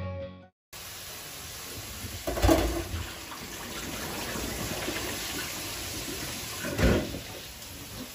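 Kitchen spray tap running steadily into a stainless steel sink as bean sprouts are rinsed in a plastic basin, with two louder clatters, one about two and a half seconds in and one near the end.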